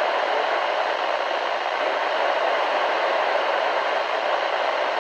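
Steady static hiss from a NOAA Weather Radio receiver on a weak signal, with the broadcast warning voice lost in the noise.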